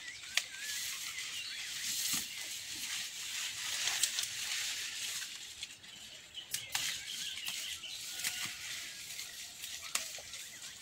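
Corn leaves and stalks rustling as climbing weeds are torn out from among the corn plants, with sharp snaps every few seconds. Small birds chirp faintly in the background.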